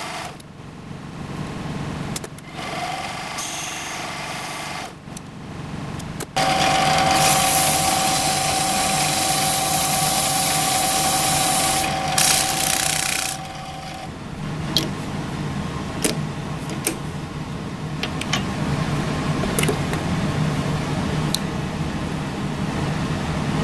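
Small metal lathe running while a cutting tool turns a brass blank. From about six seconds in to about fourteen, sandpaper pressed against the spinning brass makes a loud steady hiss over the motor's whine. After that the lathe hums more quietly, with light clicks of metal tools being handled.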